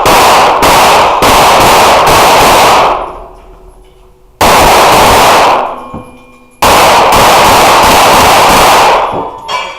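Pistol fire in rapid strings at a practical shooting stage: three bursts of fast shots, roughly three a second, with short pauses between them where the shooter moves or reloads. The shots are very loud and ring with the echo of an indoor range.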